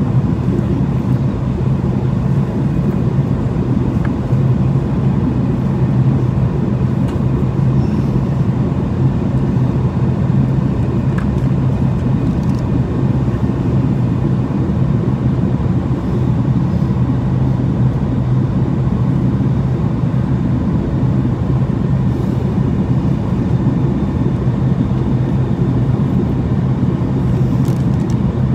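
Steady cabin noise inside a Boeing 737-800 in flight on approach: the drone of its CFM56-7B engines and the rush of airflow, with a strong low hum.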